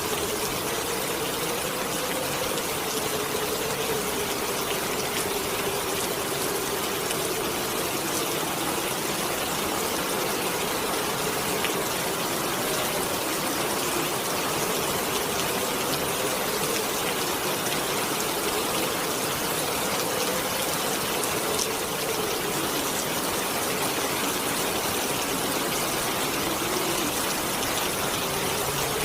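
Heavy rain hissing steadily under a howling wind, whose low moaning tone slowly rises and falls in pitch.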